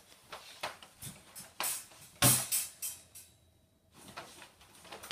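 Wire dog crate rattling and clanking in irregular knocks as a dog moves about inside it under a blanket, with a brief lull a little after three seconds in.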